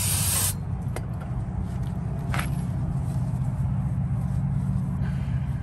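Aerosol brake-parts cleaner spraying a caliper slider pin in a loud hiss that cuts off about half a second in, then a short second hiss and faint rubbing as the pin is wiped with a rag. A steady low hum runs underneath.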